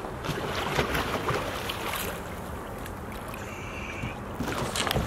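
Water sloshing and splashing at the side of a boat as a large musky moves in a landing net, with a few short sharp splashes among steady wind noise.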